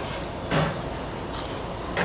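Steady running of construction machinery during a concrete slab pour, with a short, louder knock about half a second in.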